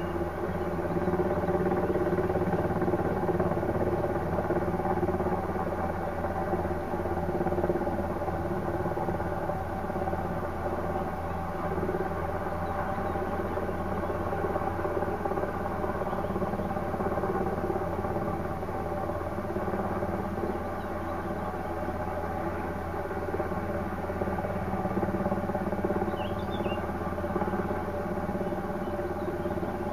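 Rescue helicopter's engine and rotor running steadily: a constant drone that holds one pitch.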